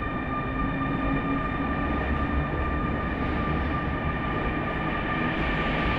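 Train rolling through an underground station: a steady low rumble with several steady high whining tones.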